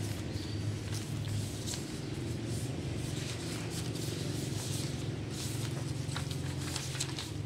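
Stiff two-sided florist wrapping paper crinkling and crackling in short bursts as the large sheets are rolled, folded and smoothed by hand, over low background music.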